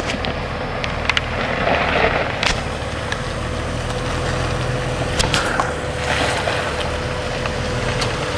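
Off-road Jeep's engine running steadily at low crawling speed, with scattered short knocks and clicks over it.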